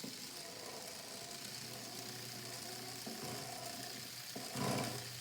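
Battery-powered LEGO chainsaw running, its small electric motor driving the LEGO chain round the bar with a steady whirring hum. It briefly gets louder near the end.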